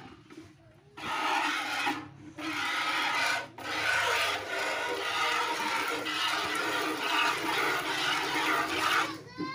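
Jets of milk squirting from a cow's teats into a plastic bucket during hand milking: a steady frothy hiss that starts about a second in, with a couple of short breaks soon after.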